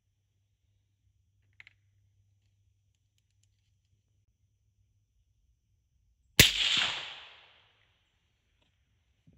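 A single rifle shot from a 6mm Mongoose firing a 65-grain V-Max handload: one sharp crack about six and a half seconds in, with its echo dying away over about a second.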